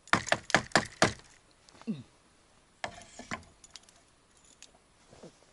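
A quick run of five or six sharp knocks or clacks of hard objects in the first second, then a second, shorter cluster of clicks about three seconds in, followed by a few faint ticks.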